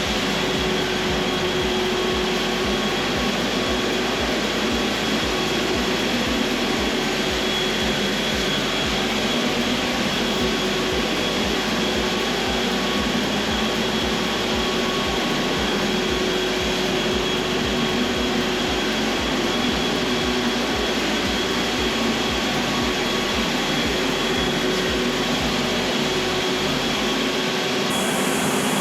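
Electric floor-care machine running steadily during wax stripping: a constant motor drone with a faint low pulse about twice a second.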